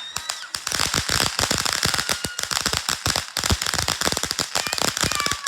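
Consumer fireworks crackling: a dense, rapid stream of sharp pops, many per second, with a few faint whistling tones gliding among them.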